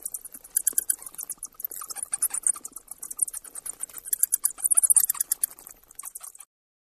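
Bat chattering: a rapid stream of short, high-pitched clicks and squeaks that stops shortly before the end.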